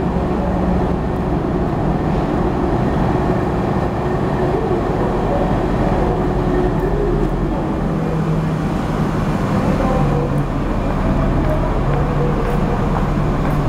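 Steady low drone of a car ferry's engines and machinery with a constant hum, echoing around the enclosed vehicle deck.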